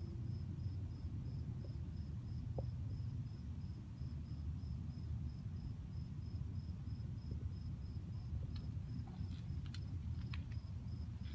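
A cricket chirping steadily, a short high note about twice a second, over a steady low rumble. A few sharp clicks come near the end.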